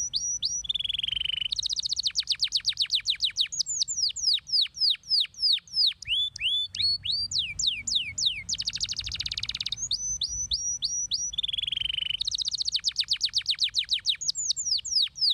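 A yellow domestic canary singing a long rolling song. It opens with a few quick down-slurred whistles and a short buzzy note, runs into a fast dense trill, then slower, louder down-sweeping whistles, and the whole phrase starts again about ten seconds in.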